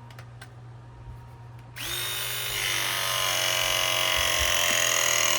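Battery-powered ProPress tool running, the motor driving the jaws to crimp a copper pipe fitting. It starts sharply about two seconds in, runs at a steady pitch for about three and a half seconds, and ends with a sharp snap as the cycle completes, after which the motor winds down.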